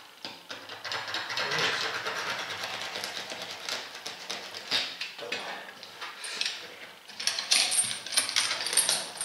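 Rubber being torn away in strips from the tread of an Omsk OI-25 truck tyre as it is pulled off with pincers. First a long crackling rip for about four seconds, then, after a pause, several short rasping tears near the end.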